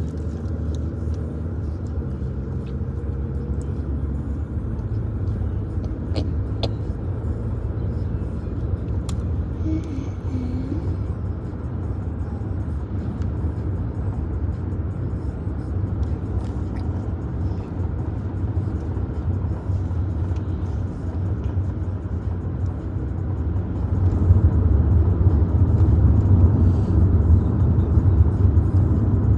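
Car cabin road noise from inside a moving car: a steady low rumble of engine and tyres, growing louder about 24 seconds in.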